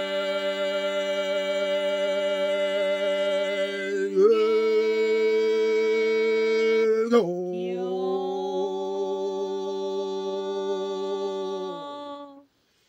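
Drawn-out Buddhist chanting: a voice holds long, steady notes, shifting pitch twice, about four and seven seconds in, then fading out near the end.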